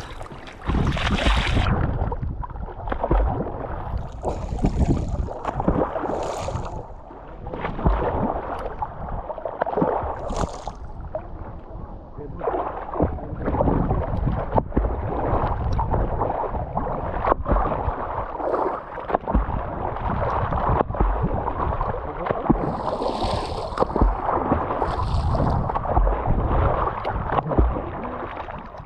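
Shallow sea water splashing and sloshing, with wind buffeting the microphone.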